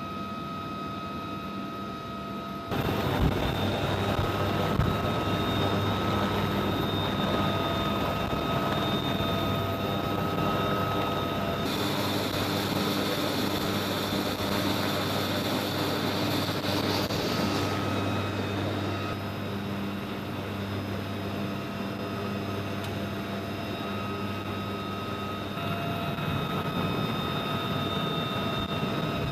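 UH-1Y Venom helicopters running on the ground: steady turbine whine over rotor noise. The sound shifts abruptly in level and pitch several times.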